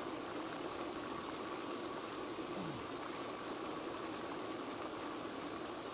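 Steady rushing splash of a spray fountain in a pond, with a faint steady hum underneath.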